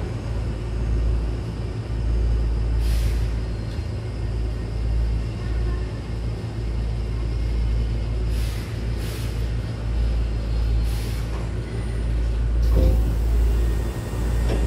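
Low rumble inside a Hankyu Kobe Line train as it slows to a stop at the platform, with several short hisses of air from the brakes. A longer, louder hiss of air comes near the end as the doors slide open.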